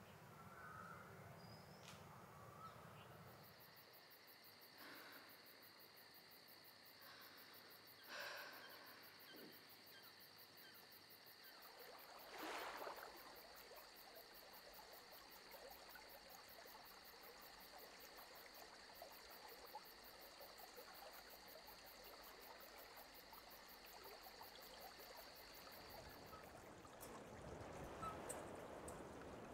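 Near silence: faint background ambience with a thin, steady high-pitched tone through most of it and a couple of faint brief sounds.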